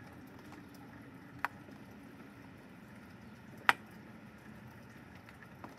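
Steady rain falling, with sharp ticks about a second and a half in and again, louder, a little past the middle, and a faint one near the end.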